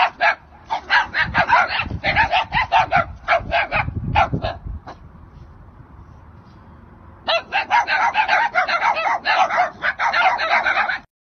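Dogs barking rapidly in two bouts, with a short lull between them. Deeper growl-like noise runs under the first bout.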